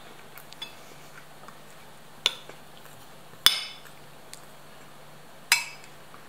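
Dishes or metal kitchenware knocked together: three sharp clinks a second or two apart, each ringing briefly, the last two loudest. A faint steady low hum runs underneath.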